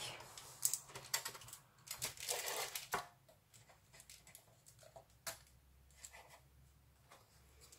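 Knife and adjustable metal baking frame clicking and scraping as a baked sponge is loosened from the frame's edge: a few scraping strokes in the first three seconds, then scattered light clicks.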